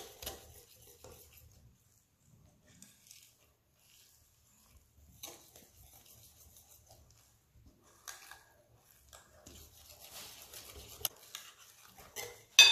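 Wire whisk stirring thick crêpe batter in a glass bowl, in soft intermittent spells of scraping and sloshing, with a sharp clink near the end.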